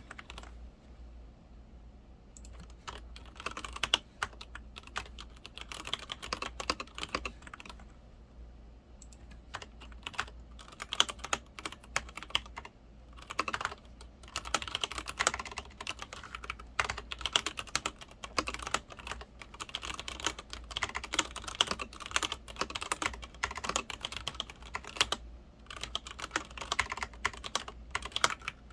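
Typing on a Leopold FC900R PD mechanical keyboard with Cherry MX Red linear switches: a fast, uneven stream of key presses. It thins out briefly near the start and again about a third of the way in.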